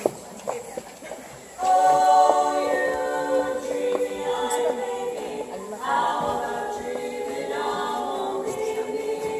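Female barbershop quartet singing a cappella in close four-part harmony, the voices coming in about a second and a half in. A few sharp knocks before that.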